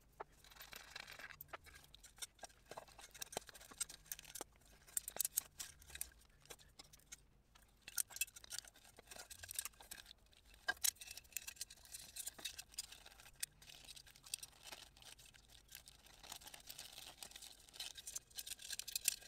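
Faint, irregular clicks, taps and light scrapes of hand tools and small metal parts being handled while a motorcycle's headlight bucket is unbolted and taken off.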